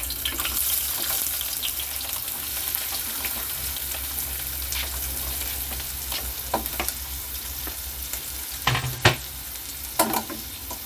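Chopped onions sizzling as they fry in a hot pot, with a few short knocks of a utensil against the pot in the second half.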